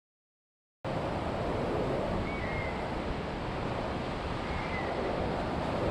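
Sea surf breaking on a rocky shore, with wind buffeting the microphone. It starts abruptly about a second in and runs steadily, with two faint short high chirps over it.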